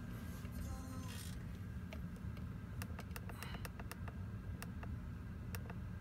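Light, irregular clicks, about a dozen, from the buttons of a Snap-on Solus Legend scan tool being pressed to scroll down its menu, over a steady low hum.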